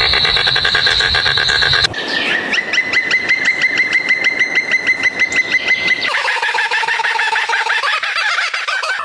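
Animal calls, mostly bird-like, in three abruptly spliced clips: a steady high-pitched call, then rapid chirps repeated several times a second over a held tone, then a lower call pattern.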